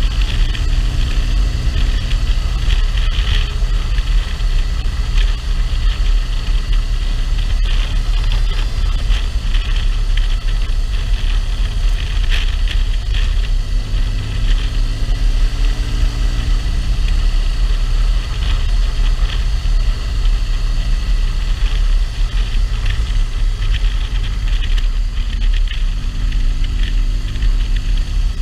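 Motorcycle under way, heard from a camera mounted on the bike: heavy wind rumble on the microphone with the engine note underneath, its pitch shifting with the throttle a few times, around the middle and near the end.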